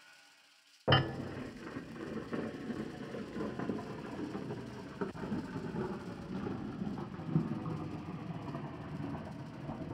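A sudden loud bang about a second in, then a continuous rumbling, rattling, engine-like noise with scattered knocks, fading away near the end.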